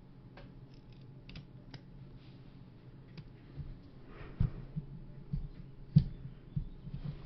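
Light clicks and taps of a smartphone and its screen protector being handled, with a few louder knocks in the second half, the loudest about six seconds in.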